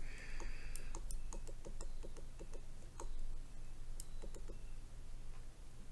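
Plastic stylus tip tapping and scraping on a tablet's glass screen in short, quick erasing strokes. It makes a quick run of light clicks, about seven a second, then scattered taps, one louder about three seconds in.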